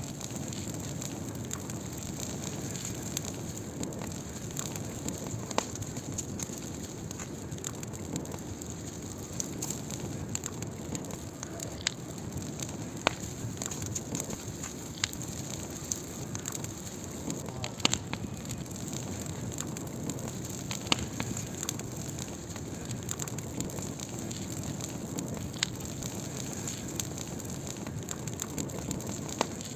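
Wood fire burning steadily, with a constant low rushing bed and irregular sharp crackles and pops throughout, a few of them louder.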